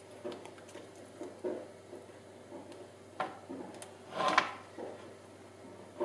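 Thin raw potato slices being picked out of a plastic strainer and laid onto a plastic microwave chips-maker tray: soft, irregular taps and light plastic clicks, with a sharper click about three seconds in and a louder handling noise a little after four seconds.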